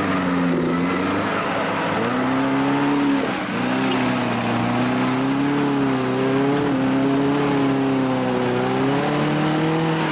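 Small Suzuki SJ-series 4x4's engine revving hard and held at high revs while the stuck vehicle tries to climb, with a brief dip about three seconds in. Only its front wheels are turning, which the onlookers take for something broken in the drive.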